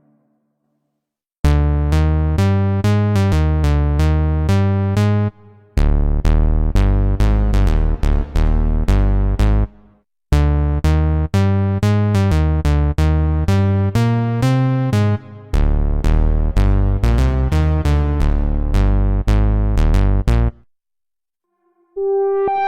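Waldorf Pulse 2 analog monosynth playing a preset as a fast, repeating sequence of short, heavy low notes, about four a second, each with a bright attack that closes down quickly. The pattern starts about a second in and stops near the end, where a higher-pitched pattern begins.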